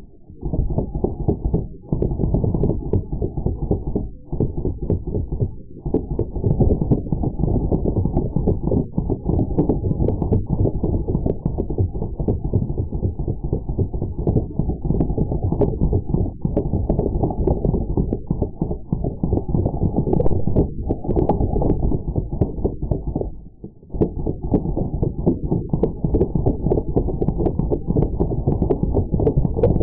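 Slowed-down sound of Drozd Blackbird BB air guns firing full-auto: a deep, nearly continuous rumble of rapid thuds, breaking off briefly a few times between bursts.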